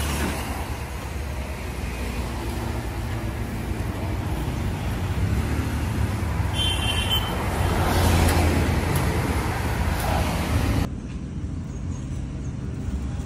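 Road traffic passing close by, a steady rumble that swells as a vehicle goes past about eight seconds in, with a brief high-pitched tone just before. Near the end the sound drops suddenly to a quieter, duller hum.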